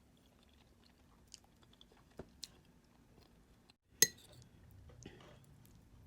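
Faint chewing with small tableware ticks, then one sharp clink with a short ringing tone about four seconds in, as tableware is set down or knocked.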